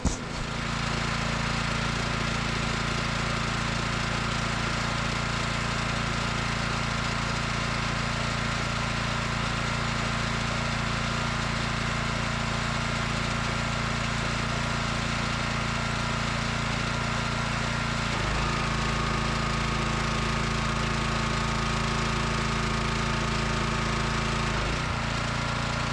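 Small gasoline engine running steadily at constant speed, with a slight shift in its pitch about eighteen seconds in and again near the end.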